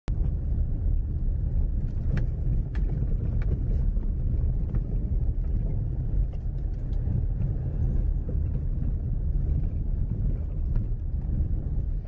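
Car driving along a rough dirt track, heard from inside the cabin: a steady low rumble of engine and tyres, with scattered small knocks and clicks from the rutted surface.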